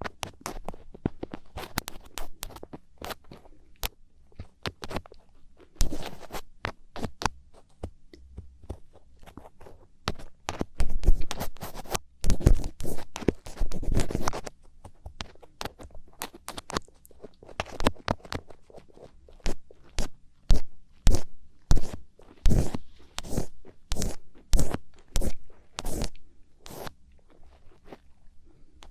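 Thin ear pick scraping and scratching close to the microphone in ear-cleaning ASMR, crackly and crunchy. Irregular rubs at first, then in the last third steady strokes about one and a half a second.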